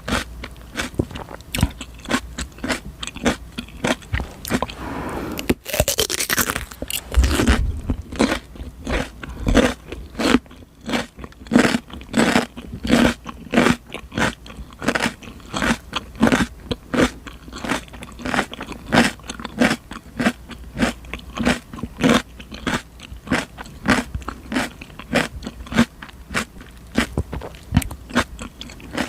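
Close-miked chewing of raw cucumber: crisp, wet crunches repeating about twice a second, with a longer, noisier crunch about five seconds in.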